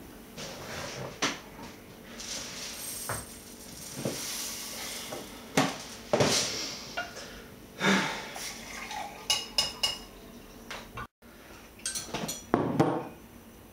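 Breakfast-table clatter: spoons and cutlery clinking and knocking against bowls and dishes in a run of sharp clinks, with juice poured from a jug into a glass.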